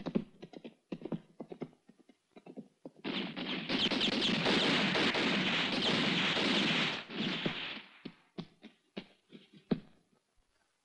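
Hoofbeats of a band of horses galloping: a few scattered thuds at first, then about three seconds in a dense clatter of many hooves swells up, holds for some four seconds and thins back to a few single thuds before dying away near the end.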